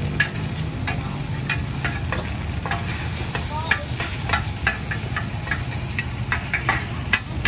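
Metal spatulas scraping and clinking on a large flat iron wok, about two or three sharp clicks a second, as radish cake (char koay kak) is stir-fried with a light sizzle. A steady low rumble runs underneath.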